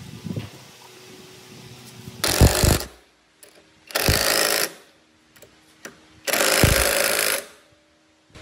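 Makita cordless impact driver hammering in three short bursts, each under a second, as it runs down the bolts that clamp a knife into a planer's cutterhead.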